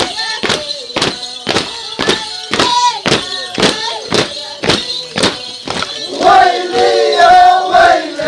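Huaylía music: singing over a steady beat of sharp strikes, about three a second. About six seconds in, a chorus of many voices comes in loudly.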